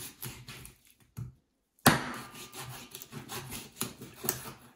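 A raw goose being handled on a wooden cutting board: a sharp thump against the board about two seconds in, then rubbing and scraping with a few knocks.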